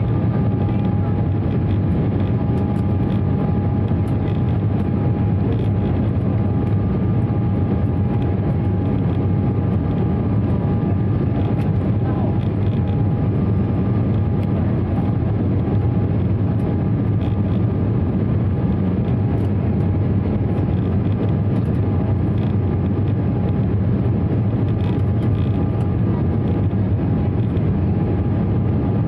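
Inside the cabin of an Embraer 195 climbing after takeoff: the steady roar of its GE CF34-10E turbofan engines and the airflow over the fuselage, with a faint steady whine on top.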